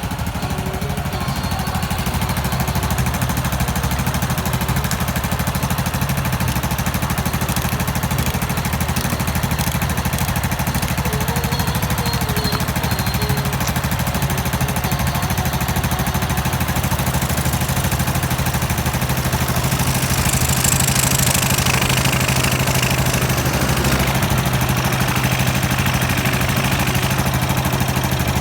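Motorcycle engine idling steadily, just rebuilt with a new cam chain set and its gearbox bearings and clutch checked to cure a noisy engine, now running quietly.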